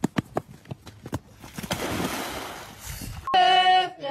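A few sharp knocks, then a splash and rush of water lasting over a second. Near the end, voices singing start abruptly and loudly.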